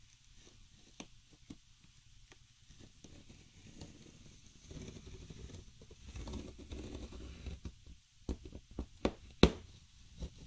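A thin hand tool drawn along the packing-tape seam of a cardboard box, cutting the tape: scraping and rustling of tape and cardboard, then a run of sharp clicks and taps near the end, the loudest about nine seconds in.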